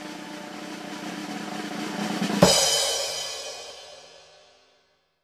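Drum-roll intro sting: a snare drum roll swells in loudness for about two and a half seconds, then ends in a cymbal crash with a low drum hit that rings out and fades away.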